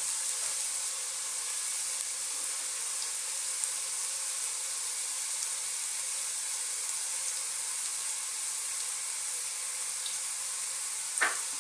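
Minced garlic and ginger strips sizzling gently in hot cooking oil in a pot: a steady hiss, the first stage of a sauté.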